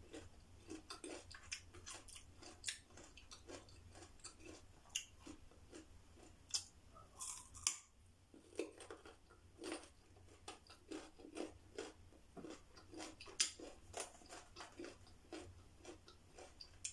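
Raw carrot stick being bitten and chewed: a run of short, crisp crunches, two or three a second at uneven spacing.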